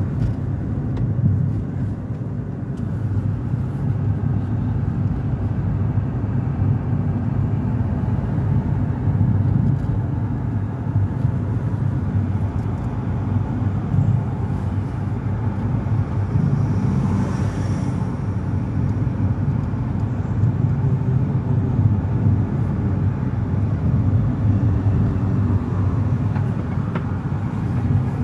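Steady rumble of a moving car, its engine and tyre noise heard from inside the cabin.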